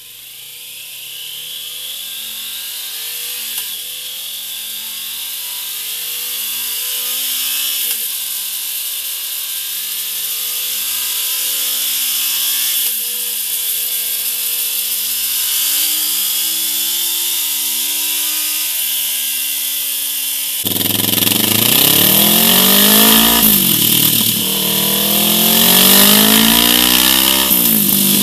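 Kawasaki Z650 parallel-twin engine revved through its stock exhaust in repeated climbs that rise and fall back. About two-thirds of the way in, the sound switches to the same engine through a MIVV Oval carbon-cap exhaust: louder and fuller, revved in quicker blips.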